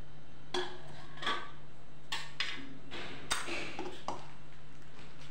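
Stainless steel plate and bowl clinking against each other and the countertop: about seven light metallic clinks and taps with short ringing, over a steady low hum.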